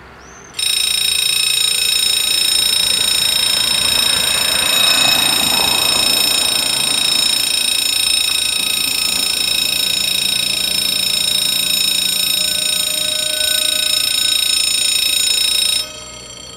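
Electronic bells of a French level crossing ringing a loud, continuous alarm tone. It starts suddenly less than a second in and cuts off near the end, once the half-barriers are down. A car drives over the crossing partway through.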